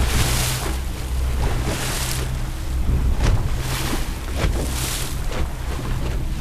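Boat underway: a steady low engine drone under the rush of the hull cutting through chop, with repeated surges of splashing spray and wind buffeting the microphone.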